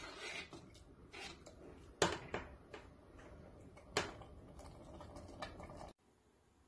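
A spoon stirring thick vegetable sauce in a stainless steel pot, clicking and scraping against the pot, with two louder knocks about two and four seconds in. The sound cuts out about six seconds in.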